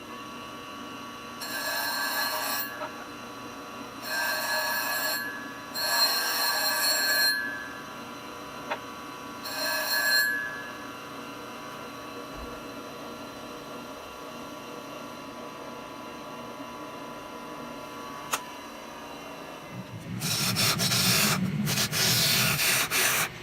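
Bench grinder with a CBN wheel running steadily, with four short bursts of ringing scraping as a high-speed steel turning tool is touched to the wheel to sharpen it. Near the end a louder, rougher continuous scraping sets in.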